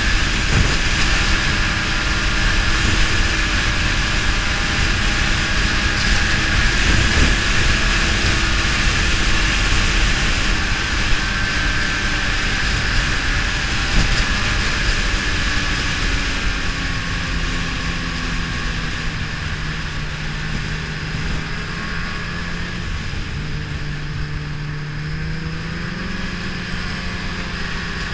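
Ski-Doo snowmobile engine running along a trail under a heavy rush of wind noise. In the second half it eases off and runs lower and quieter, then revs back up near the end.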